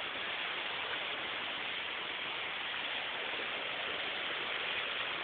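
Mountain creek water rushing over small waterfalls, a steady hiss.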